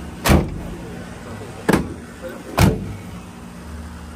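Rear doors of a Ford Club Wagon van being slammed shut: three heavy thuds over about two and a half seconds, over a steady low hum.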